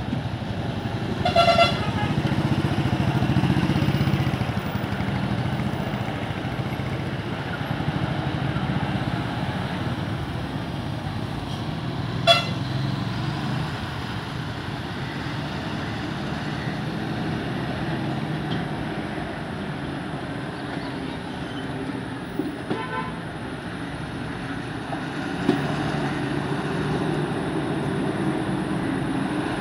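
Heavy goods lorries' diesel engines running under load as the trucks pull round a hairpin bend, a steady low drone that swells near the start and again near the end. A truck horn honks three times: a short toot about a second in, a brief one around the middle, and a fainter one later.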